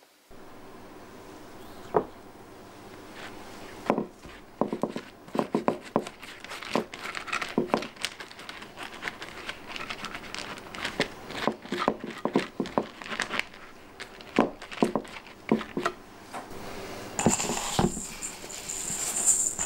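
Irregular small clicks and taps of a silicone pastry brush dabbing sugar glaze onto a baked crescent roll on a ceramic plate. Near the end, a high rustling hiss as the roll is turned in granulated sugar in a stainless steel bowl.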